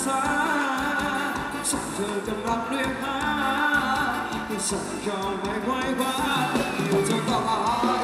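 Live band playing a Thai ramwong dance song, with a singer over a steady dance beat.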